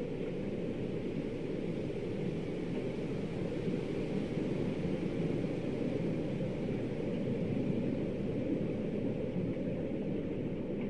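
Steady, even rush of snowstorm wind, mostly low rumble with a fainter hiss above it and no gusts or breaks.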